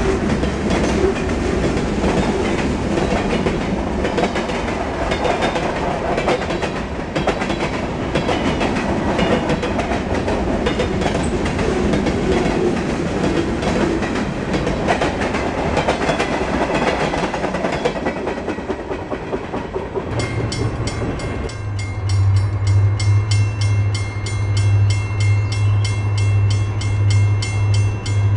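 Freight train of boxcars and tank cars rolling past, its wheels clattering over the rail joints with a steady rumble. About 20 seconds in this gives way to a grade-crossing bell ringing in a fast, even rhythm.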